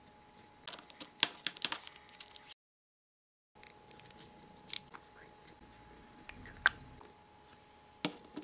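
Tiny plastic miniature kitchen pieces handled by fingers and set down: a quick flurry of light clicks and rustles, then dead silence for about a second, then a few scattered light taps.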